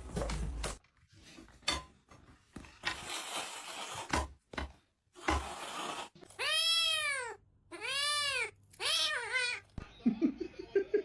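A cat meowing three times in a row, each meow rising and then falling in pitch, after a few knocks and a short burst of noise.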